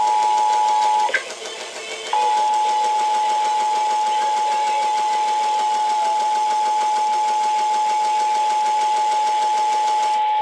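Emergency Alert System attention signal over FM radio: the two-tone alert sounds for about a second, drops out for about a second, then comes back as a single steady tone until just before the end, over constant broadcast hiss.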